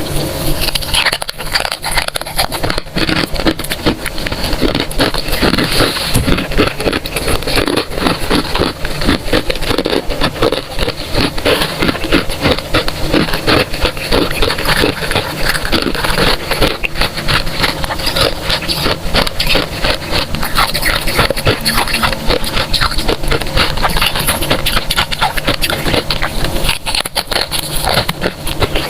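Freezer frost being crunched and chewed close to the microphone: a dense, continuous crackling of small crunches.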